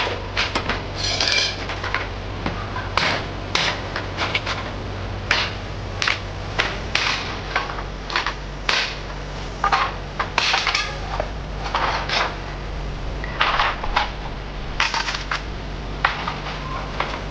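Irregular clattering knocks and clinks of hard objects, roughly one or two a second, some with a brief ring, over a steady low hum.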